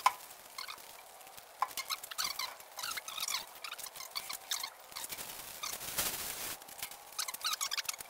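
Small birds chirping and twittering in many short, high calls, scattered through the whole stretch. A single sharp click right at the start is the loudest sound.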